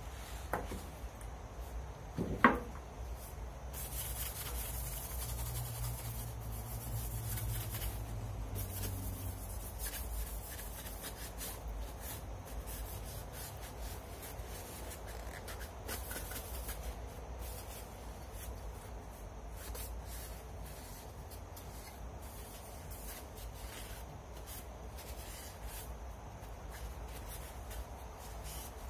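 Paper towel rubbing over a wooden gun stock and its buttplate, wiping it clean. Two sharp knocks come in the first few seconds, the second louder.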